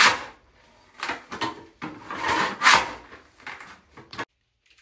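A scraper working old stick-down floor tile and its sticky adhesive off a concrete floor, in a series of uneven scraping strokes that cut off suddenly about four seconds in.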